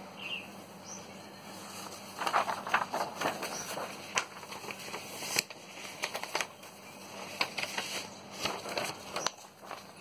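Sheets of printed paper rustling and crackling as they are handled and swapped, in irregular bouts starting about two seconds in, over a faint steady hum.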